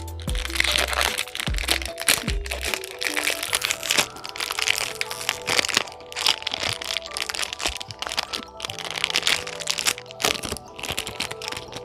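Plastic snack wrapper crinkling and crackling as it is handled and torn open, over steady background music.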